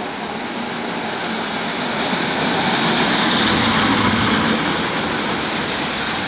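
A Czech class 451/452 'Pantograf' electric multiple unit running past along the platform track, with a steady rumble of wheels and running gear. It grows louder as the first car draws level about three seconds in and eases slightly near the end.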